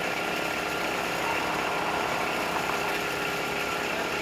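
An engine idling steadily, with a constant thin whine running over the low drone.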